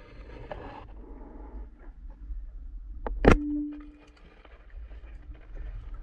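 A single sharp speargun shot underwater about three seconds in, with a short ringing tone fading after it, over the low hiss and rustle of the water.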